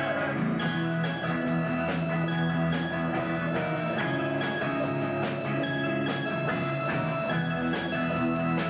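Rock band instrumental passage: electric guitar chords over a drum kit keeping a steady beat, with no singing.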